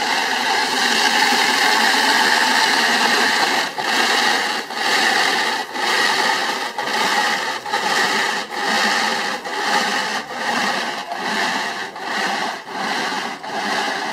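InSinkErator garbage disposer, rebuilt as a margarita blender, running and churning a batch of margarita mix. Its noise is steady at first, then from about four seconds in it swells and dips about twice a second.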